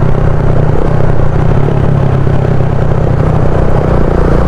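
Motorcycle engine running at a steady pace while riding along a road, with road and wind noise.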